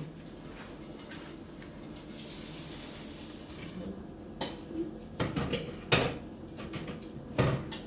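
Water running for the first half, heard as a steady hiss, then a few sharp clatters and knocks of kitchen utensils and pots in the second half.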